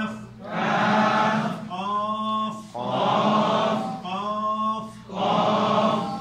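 Chanted Quranic Arabic recitation in alternating phrases about a second long. A single man's voice leads each phrase, and a group of voices repeats it in unison.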